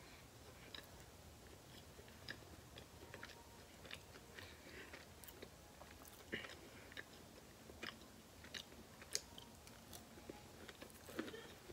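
Faint chewing of a Hot Pocket: soft, irregular mouth clicks and smacks, a few of them louder around the middle and near the end.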